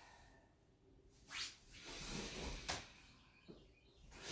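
Two short, breathy exhales, about a second and a half in and again near three seconds, with faint movement sounds between them, as a person breathes through a slow exercise.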